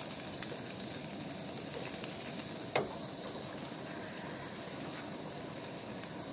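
Steak pieces sizzling steadily as they fry in oil in a skillet, with a single sharp clink about three seconds in.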